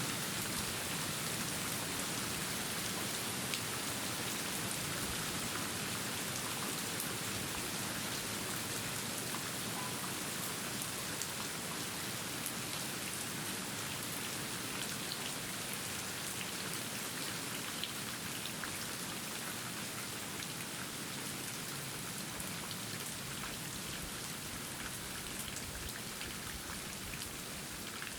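Steady rain falling, an even hiss with scattered drop ticks, easing very slightly toward the end.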